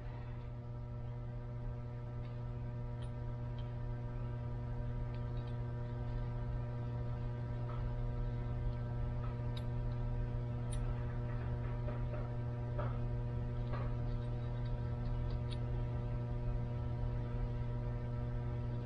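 Steady electrical mains hum made of several even tones, growing slightly louder, with a few faint small ticks scattered through it from a pick nudging piston rings around their grooves.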